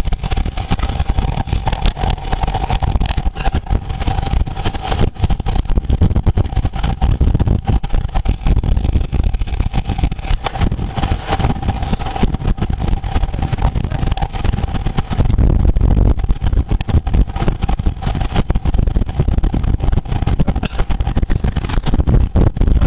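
Wind rumbling on the microphone while riding at race speed, with a steady thin whine for the first two-thirds; about two-thirds of the way in the whine fades and the rumble grows louder.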